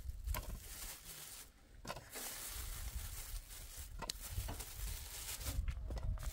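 Thin plastic bag crinkling and rustling as tomatoes are taken out of it by hand, with a few light knocks.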